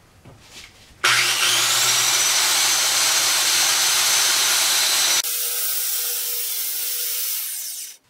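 Circular saw starting up about a second in, its motor whine rising quickly to a steady pitch as the blade cuts through a sheet of plywood. About five seconds in the sound turns abruptly thinner and a little quieter, and it stops just before the end.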